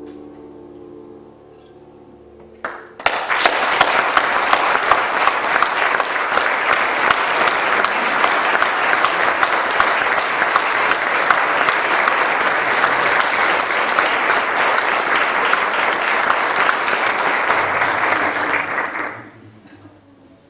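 The last held notes of a piano and cello die away, then an audience bursts into applause about three seconds in. The clapping runs steadily for about sixteen seconds and fades out near the end.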